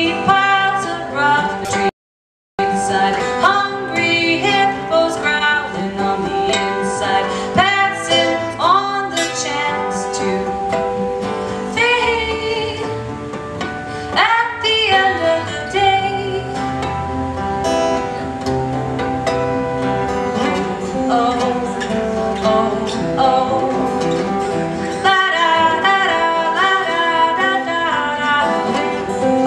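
Music: a country- or bluegrass-style song with plucked acoustic guitar and singing. The sound cuts out completely for about half a second near the start.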